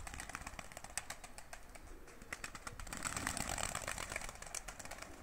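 Domestic pigeons taking off: a quick run of wing claps and flapping that grows into a louder flurry about three seconds in as several birds lift off together.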